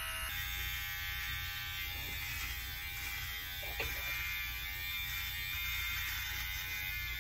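Electric razor buzzing steadily as it is run over a bald scalp, touching up patches of stubble.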